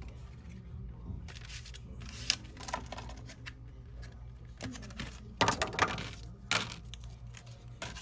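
Irregular small clicks, taps and short scrapes of repair tools working on an iPhone 12's parts, loudest in a cluster about five and a half to six and a half seconds in, over a steady low hum.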